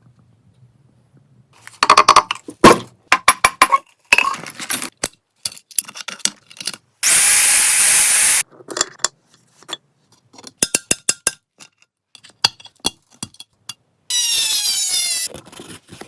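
Metal parts and hand tools clinking and knocking, with two short runs of a power tool; the second falls in pitch as it winds down.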